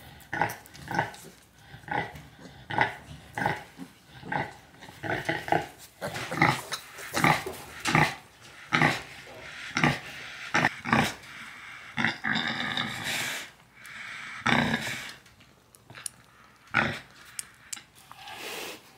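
Sow and nursing piglets grunting: a steady run of short grunts, roughly one every half-second to second, with a longer drawn-out grunt about twelve seconds in. Rhythmic grunting like this is typical of a sow nursing her litter.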